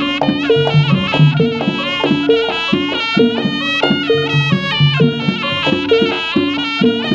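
Jaranan music: a shrill double-reed slompret plays a melody over drums and a steady, repeating pattern of pitched gong strokes.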